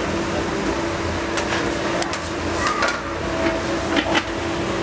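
A steady machine hum with scattered sharp knocks and clatter, a few of them close together about four seconds in.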